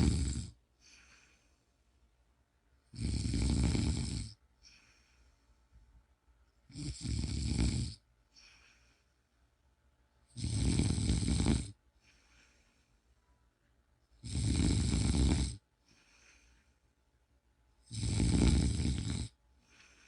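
Snoring in a slow, even rhythm: a loud snore about every four seconds, each lasting just over a second and followed by a much fainter breath.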